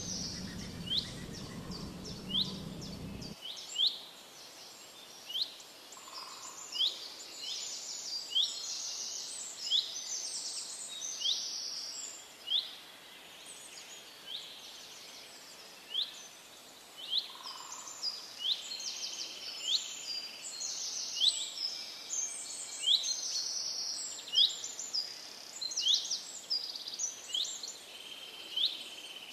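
Birds chirping: one bird repeats short high chirps about once a second, with other birds twittering higher up. A low rumble underneath cuts off suddenly about three seconds in.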